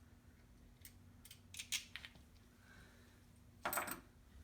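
Small metal hood-latch parts clicking and clinking as they are handled: a few light clicks, then a louder short clink near the end.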